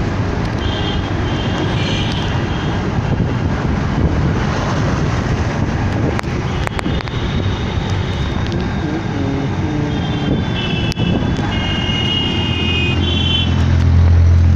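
Machinery running steadily: a loud, even mechanical noise, with a deep hum that grows stronger near the end.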